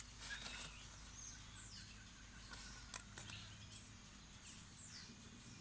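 Birds calling: short high chirps and quick downward-sliding whistles, repeating. A sharp click comes about three seconds in.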